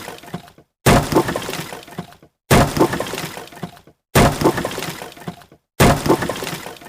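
Wood breaking and splintering, a sound effect repeated four times about every second and a half. Each repeat is a sudden crack followed by about a second of crackling debris that dies away to silence.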